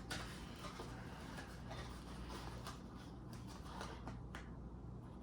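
Faint handling noises of the router sign kit's plastic letter templates and their cardboard box: light scattered clicks and rustles over a low room hum.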